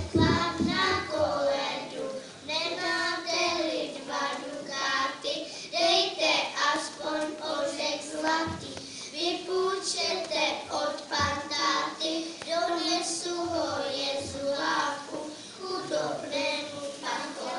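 A group of children singing a song together, their voices moving through a simple melody.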